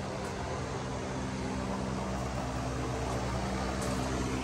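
Electric fan motor humming steadily, with a soft rush of moving air.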